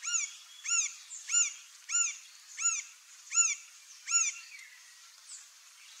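Green-barred woodpecker calling: a series of seven ringing, arched notes at an even pace of about one and a half a second, stopping a little after four seconds in.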